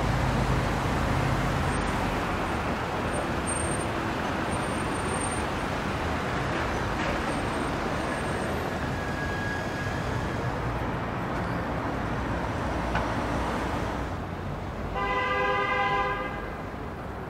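Steady road traffic noise at a busy city junction. Near the end a vehicle horn sounds once, for about a second.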